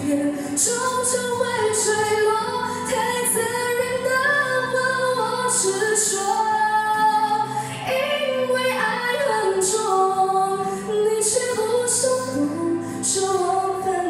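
A teenage girl singing a Mandarin pop ballad into a handheld microphone over instrumental backing music.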